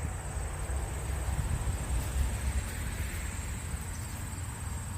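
Outdoor wind buffeting the microphone as an uneven low rumble, with a steady high-pitched insect drone, likely crickets, and faint rustling of soil being sorted by hand.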